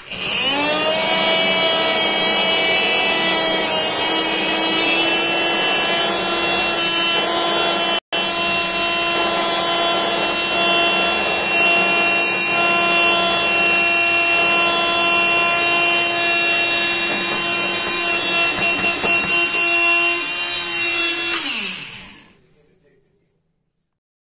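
Small DC electric motor of a homemade mini jet engine spinning up to a steady high whine over a rushing noise, running for about twenty seconds, then winding down in pitch and stopping.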